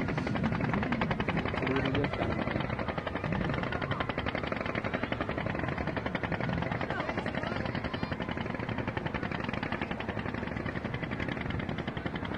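A small engine running steadily with a rapid, even chugging, with voices faintly behind it.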